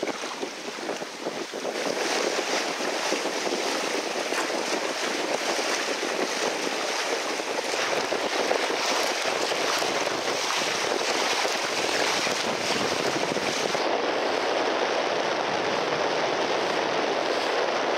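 Water rushing and splashing along a sailboat's hull as it sails through chop, with wind buffeting the microphone. The rush grows louder about two seconds in.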